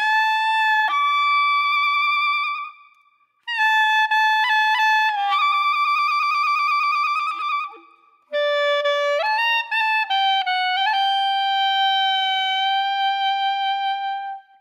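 Background music: a solo wind instrument playing a slow melody of long held notes in three phrases, with short breaks about three and eight seconds in.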